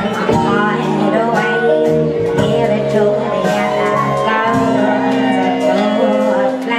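Live band playing, guitars, keyboard and drums behind a singer's voice.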